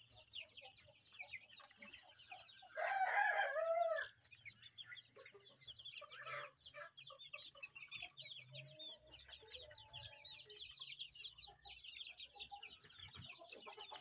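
A flock of 21-day-old chicks, white and local (baladi) breeds, peeping continuously in rapid high chirps. One louder, longer call rises above the flock about three seconds in.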